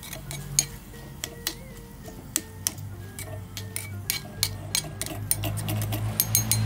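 Small metal spatula clicking and scraping against a miniature metal wok while chopped octopus is stirred: irregular light clinks, a few to several a second.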